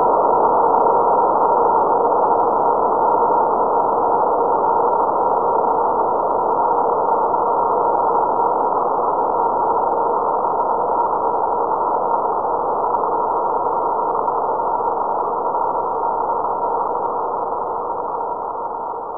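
Spaceship engine drone sound effect: a steady low hum with two steady tones running through it, cutting in suddenly and slowly fading away near the end.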